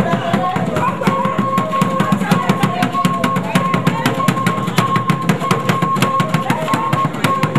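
Traditional drumming: a large barrel drum and other percussion play a fast, dense rhythm. A long high note is held above the drumming for most of the stretch.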